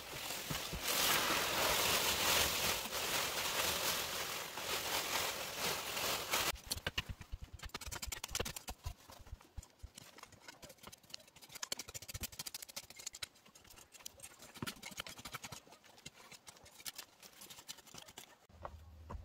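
A loud, dense hiss for the first six seconds or so, then an abrupt change to irregular knocks and scrapes as a knife is jabbed into packed earth and the loosened dirt is scraped away by hand.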